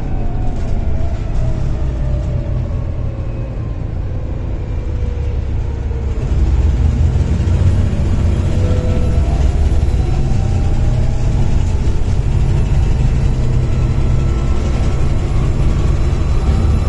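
Volvo B7TL bus engine with its turbo whine. The engine eases off with the whine falling in pitch, then about six seconds in it comes back on load and grows louder, the whine rising again and holding as the bus accelerates.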